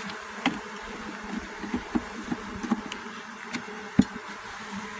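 Honeybees buzzing in a steady hum around an opened hive. A few sharp clicks sound over the hum, the loudest about four seconds in.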